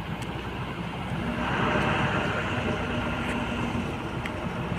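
A motor vehicle running, with a steady low hum under a rushing noise that swells about a second and a half in and eases off a couple of seconds later.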